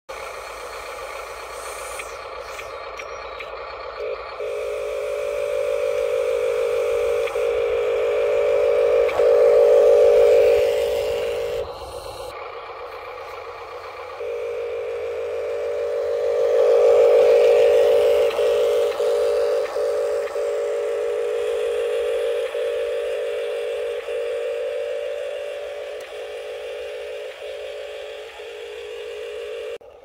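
Electric drive motor and gearing of a Huina RC articulated dump truck whining steadily as it drives. The whine swells to a peak, stops briefly about twelve seconds in, starts again and swells once more, then fades.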